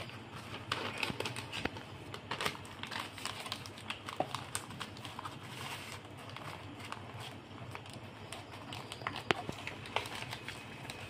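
Sheet of paper rustling and crinkling in small irregular crackles as hands wrap it around a chicken roll.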